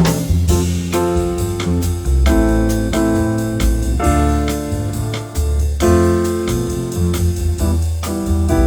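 Background music: keyboard or electric piano chords over a bass line with a steady beat.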